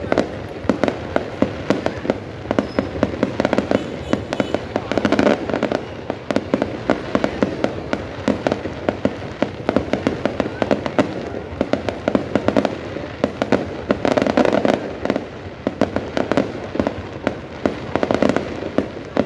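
Fireworks display: a dense, unbroken run of sharp bangs and crackling from many bursting shells, swelling into heavier volleys several times.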